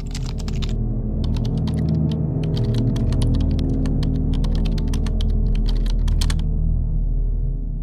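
Rapid typing sound effect, a fast irregular run of key clicks, over a low steady drone; the clicks stop about six and a half seconds in while the drone carries on.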